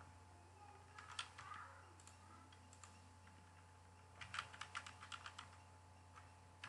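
Faint keystrokes on a computer keyboard: a short burst of typing about a second in, then a longer run of quick keystrokes from about four to five and a half seconds in.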